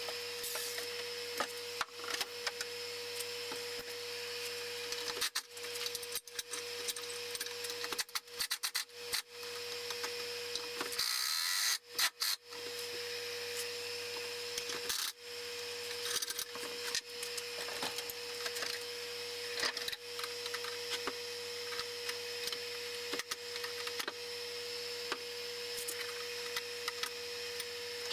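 A small electric motor whirring steadily, cutting out briefly several times (the longest stop a little before halfway), with scattered clicks and knocks.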